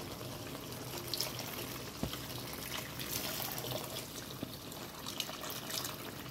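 Water being poured into a wok of simmering chicken and colocasia-leaf curry, a steady pour over the bubbling liquid, with a light knock about two seconds in.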